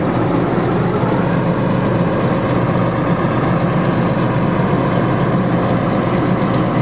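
Vehicle engine running steadily, loud and even, with a low hum.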